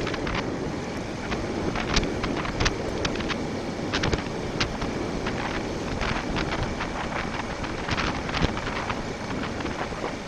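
Wind rushing over the microphone of a motorcycle ridden at about 25 mph, with the bike's running and road noise underneath and scattered sharp crackles throughout.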